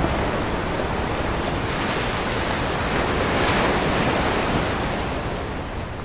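Ocean surf: a steady rush of noise that swells to a peak about three and a half seconds in and then eases off.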